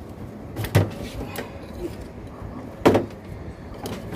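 Two sharp knocks about two seconds apart as the circuit board and chassis of an opened CRT television are handled.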